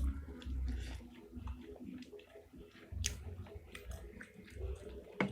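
Close-miked chewing of spicy meatballs (pentol mercon): soft low thuds of the mouth working, with wet clicks and smacks, and a sharp click near the end.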